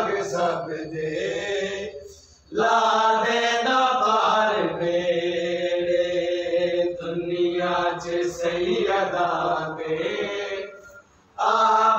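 A voice chanting in long held sung phrases, breaking off briefly about two seconds in and again near the end.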